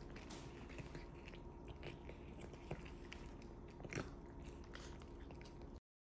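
Cats licking a lickable treat from a squeeze tube held in a hand: faint, wet tongue smacks and small clicks, the loudest about four seconds in. The sound cuts off into silence near the end.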